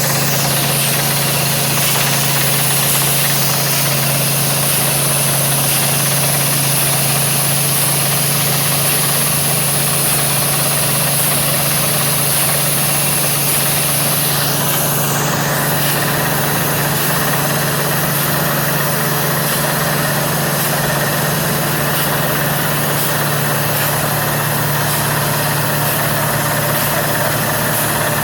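Water-well drilling rig running: a loud, steady engine drone with a constant low hum and a noisy hiss above it that shifts in pitch about halfway through.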